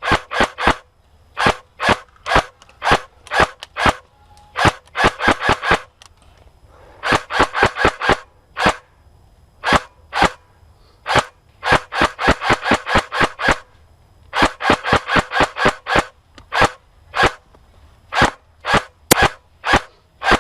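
Airsoft gun firing rapid single shots, each a sharp snap, in strings of several at about five or six a second with short pauses between strings.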